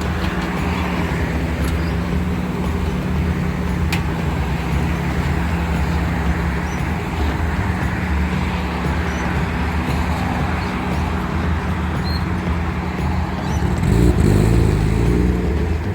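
Car engine idling steadily after a jump from a fully charged battery, louder for a moment near the end.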